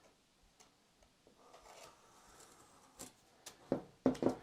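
Faint scratching of a line being drawn along a tape measure's blade on wood, followed near the end by several sharp clicks and taps as the tape and the drawing tool are handled.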